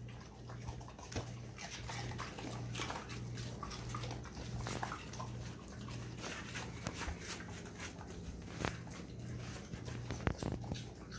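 Several pet dogs moving about on a tile floor while they wait for food, with many small clicks and scuffs and a few faint whines. A low hum pulses underneath about once a second.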